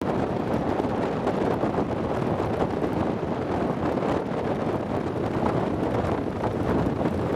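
Wind rushing and buffeting against the microphone on the open deck of a ferry under way: a steady, fluttering noise.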